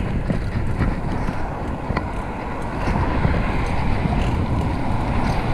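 Steady wind rush over the microphone and road rumble from a fixed-gear bicycle rolling along a paved street.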